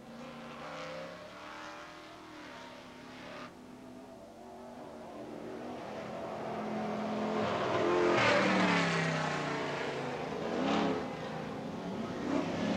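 Off-road racing truck engines running hard on the track, rising and falling as the trucks race. It is loudest about eight seconds in, where a truck passes and its engine note falls, with another swell near the end.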